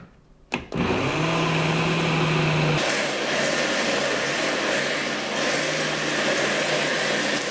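Countertop blender starting under a second in and running steadily, whirring through a liquid cake batter. About three seconds in its tone shifts lower and grows noisier as it keeps blending.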